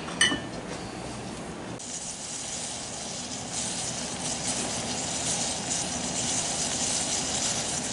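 Saucepan of strawberries in water on a high gas flame, coming to a boil: a steady bubbling hiss that grows a little louder. A brief metal clink right at the start.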